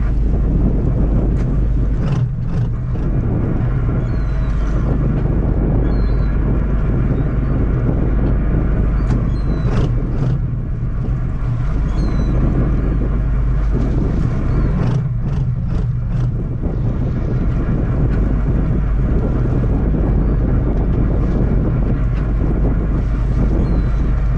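A fishing boat's engine running steadily with a constant drone, with a few short knocks on board.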